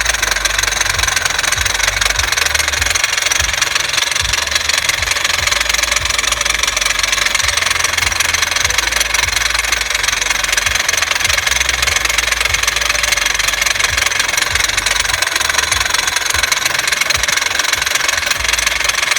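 Steady road and running noise from a 2006 Honda Civic, with irregular low knocks underneath. This is the knocking the owner hears when braking and stopping, and wonders whether it comes from a bad CV axle.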